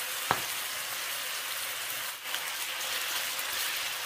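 Pork pieces sizzling in oil in a hot wok with oyster sauce, a steady frying hiss. A single sharp click sounds about a third of a second in.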